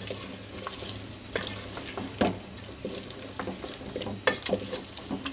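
A spoon stirring chunks of bottle gourd through sizzling onion-tomato masala in a pot, with a few sharp scrapes and knocks of the spoon against the pot.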